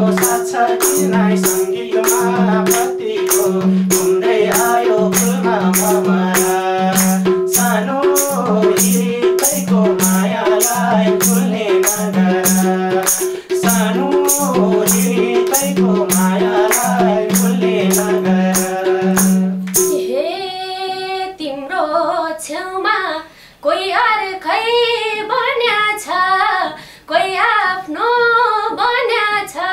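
Nepali dohori folk song: voices singing over a madal drum beat, with sharp regular percussion strokes and a held drone tone. About two-thirds of the way in the instruments stop suddenly and female voices carry on singing unaccompanied.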